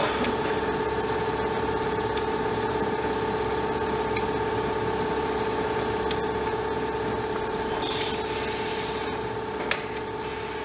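A Special Adhesive Process Machine MkIII F1 sticky-note adhesive coater runs steadily while feeding paper sheets, giving a steady mechanical hum with a constant whine. There is a short hiss about eight seconds in and a single sharp click near the end.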